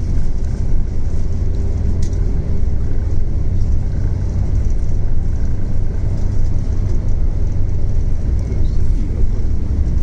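Steady low rumble of a moving road vehicle heard from inside the cabin: engine and tyre noise running evenly, with no change in pace.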